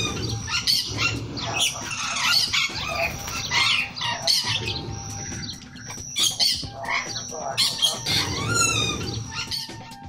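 Amazon parrot squawking over and over, harsh calls that sweep up and down in pitch, with a quieter spell around the middle.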